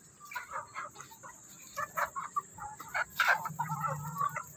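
A flock of chickens clucking, with many short, irregular calls from several birds and one louder, sharper call a little after three seconds in.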